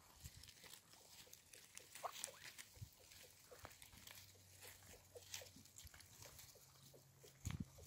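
Faint, irregular clicking and rustling of a flock of Muscovy ducks pecking and dabbling through a pile of cut greens, with an occasional short soft call.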